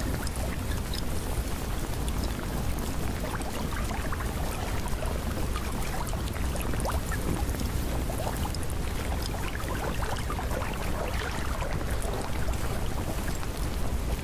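Steady water noise with a constant low rumble and many small crackling drop-like ticks.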